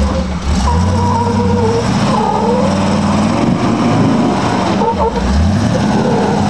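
Flat-fender Jeep's engine running under load as it crawls over an obstacle, its revs rising near the start and again about five seconds in.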